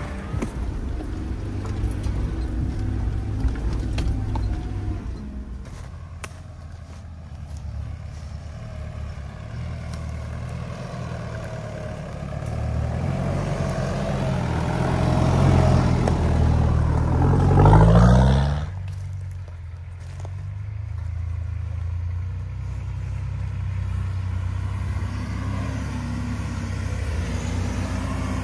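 Off-road 4x4 engines working up a steep dirt trail. A Jeep Cherokee's engine grows louder with rising revs as it climbs and passes close, then cuts off abruptly about two-thirds of the way through. Another off-roader's engine runs steadily as it approaches near the end.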